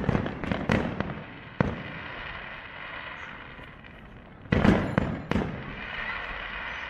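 Fireworks display: aerial shells bursting in sharp bangs, several in the first second and another cluster about five seconds in. A fainter, steady hiss fills the gaps between them.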